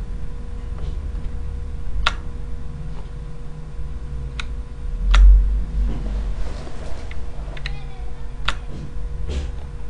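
A handful of sharp single clicks at a computer, spaced a second or more apart, over a steady low hum and a faint steady tone.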